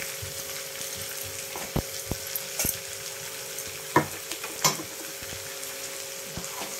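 Cauliflower and pea keema sizzling in a steel kadai over a gas flame. A few sharp knocks of the spatula against the pan come through, the loudest about four seconds in.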